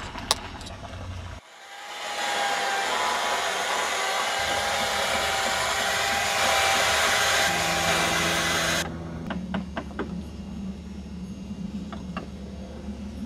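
A chainsaw running steadily for about seven seconds, then cutting off abruptly. A quieter steady hum with a few light knocks follows.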